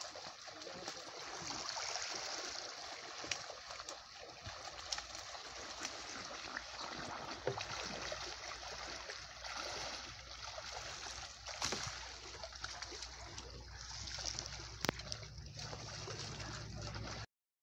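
Pond water splashing and sloshing as people wade through it dragging fishing nets, with a few sharp splashes. The sound cuts off suddenly near the end.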